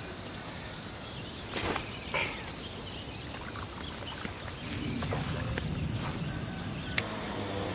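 Insects trilling steadily at the water's edge: one high continuous note and a faster pulsing note that breaks off a few times. A couple of brief splashes come about a second and a half and two seconds in, fish breaking the surface.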